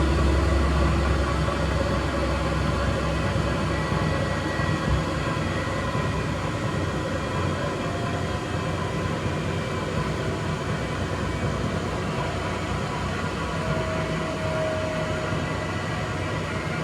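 Extra-large coin-laundry washing machine running near the end of its cycle, a steady rumbling whirr that slowly grows quieter as the drum winds down.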